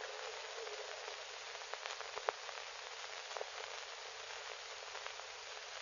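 Steady hiss with scattered clicks and crackles, the surface noise of an old film soundtrack, with one sharper click a little over two seconds in.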